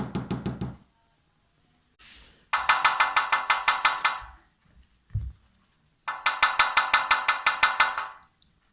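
Cockatiel knocking with its beak under a fridge: three bursts of rapid taps, about eight a second, with a ringing, almost tuned tone. The first burst is short and dull, the next two longer and brighter, with a single low thump between them.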